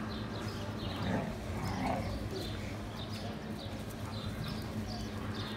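Birds chirping repeatedly, several short calls a second, over a steady low hum.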